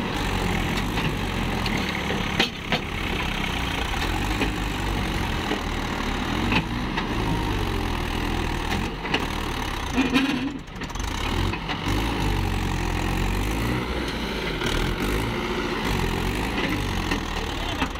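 Mahindra Yuvo 415 DI tractor's diesel engine running hard under load as it strains to pull a trailer bogged in mud. It dips briefly about ten seconds in and picks up again, with a few sharp knocks along the way.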